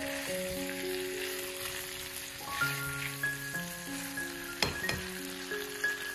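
Potatoes and mushrooms sizzling in a hot frying pan as they are stirred with a spatula, with one sharp knock about four and a half seconds in. Gentle background music plays over it.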